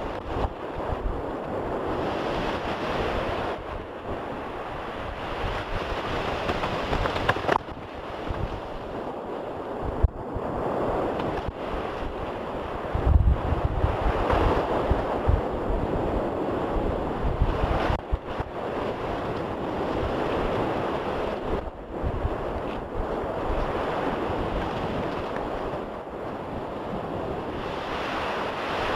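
Steady rushing noise with wind buffeting the microphone in low gusts. It changes abruptly several times.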